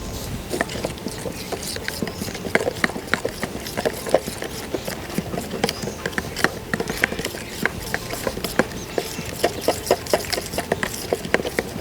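A spoon stirring a thick, oily marinade in a bowl, with quick irregular clicks and taps against the bowl, several a second.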